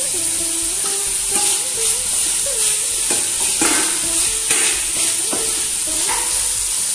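Spatula stirring and scraping chopped banana stem around a nonstick frying pan, with irregular strokes about once a second over a steady sizzle of the frying. The stem is being stir-fried nearly dry, with salt just added.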